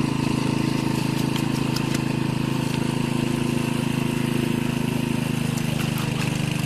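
Small engine of a water pump running steadily at a constant speed, drawing water out through a hose.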